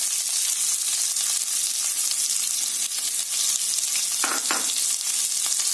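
Chopped onion and dried red chillies frying in hot oil with mustard and cumin seeds in a stainless steel kadai: a steady sizzle with fine crackling.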